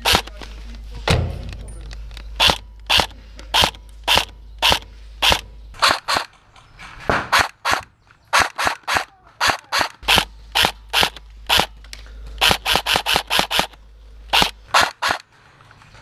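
Airsoft rifle firing single shots, about two a second with short pauses, and a quick string of about six shots near the end.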